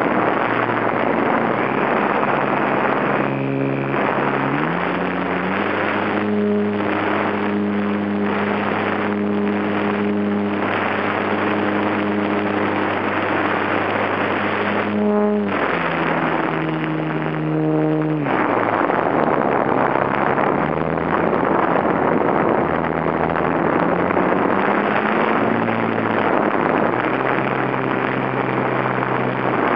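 HobbyZone Super Cub's brushed electric motor and propeller humming, heard from a camera on board the plane under heavy wind rush; the hum rises in pitch a few seconds in, holds steady, dips briefly about halfway, drops, then rises and falls again.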